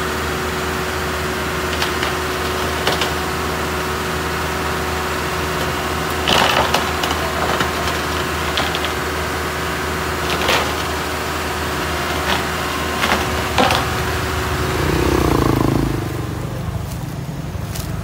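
Diesel engine of a Cat CS533 single-drum road roller idling steadily, broken by a few short sharp knocks. About three-quarters of the way through, the steady drone gives way to a different engine sound as a small motor scooter comes close.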